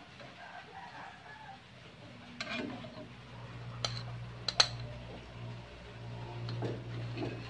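A spatula clicks and scrapes against a nonstick frying pan as pancakes are lifted out, with a few sharp clicks around the middle, the loudest about four and a half seconds in. A steady low hum sets in about halfway through.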